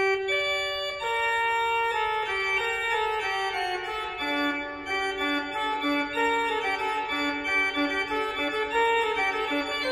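Organ music playing held chords, the notes changing about once a second, with a lower line of notes coming in about four seconds in.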